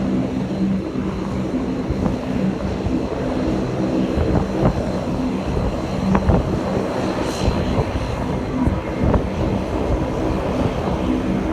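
Aircraft engines droning steadily with an even hum, under heavy wind buffeting on the microphone.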